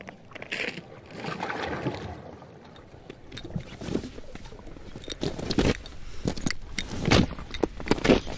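Footsteps crunching in snow, building in the second half to about two crunchy steps a second. Before that there is a softer, irregular rustling.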